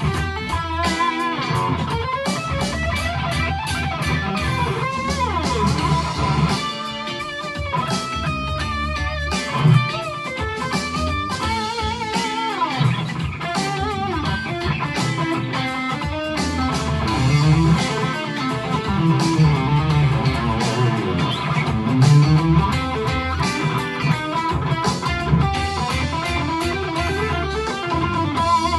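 Stratocaster-style electric guitar improvising lead lines with string bends over a funky, bluesy backing track with bass.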